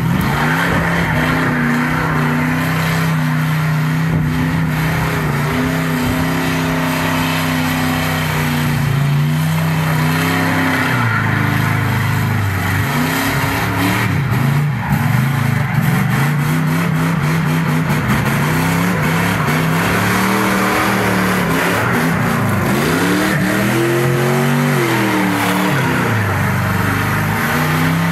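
A car doing a burnout, its engine held at high revs with the tyres spinning on concrete. The revs stay steady for the first ten seconds or so, then swing up and down again and again as it spins donuts. A constant hiss of tyre noise runs under the engine.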